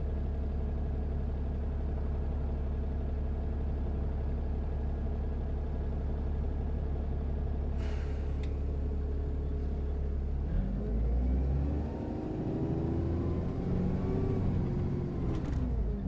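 Bus engine idling steadily, with a brief hiss of air about eight seconds in. It then revs up as the bus pulls away, its engine note rising, holding and dropping again near the end, with a few short hisses or clicks.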